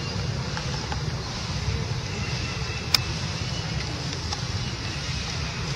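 Steady low outdoor rumble with a light hiss above it, and a single sharp click about three seconds in.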